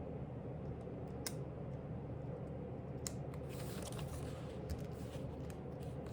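Steady low room hum with a few faint, light clicks and a brief soft rustle about three and a half seconds in.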